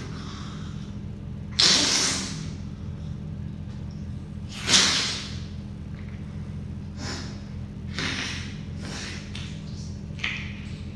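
A woman sneezing wetly: two loud sneezes about three seconds apart, then quieter, shorter breaths and sniffs.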